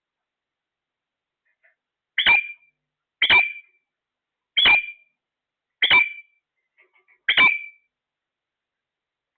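A parrot giving five short calls about a second or so apart, starting about two seconds in.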